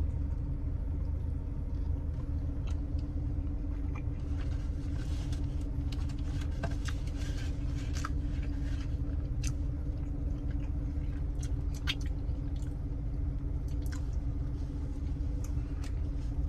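A man chewing mouthfuls of a fried chicken sandwich, with wet, crunchy mouth clicks that come mostly in the middle, over a steady low rumble.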